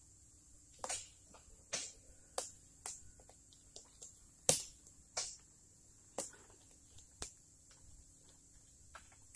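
Irregular sharp snaps and crackles, about a dozen, close to the microphone, the loudest about halfway through, over a faint steady low hum.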